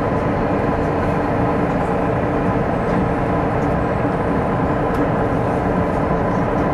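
Cabin noise inside a KTX-Sancheon high-speed train running at about 300 km/h: a steady rush of running and wind noise with a faint, even hum under it.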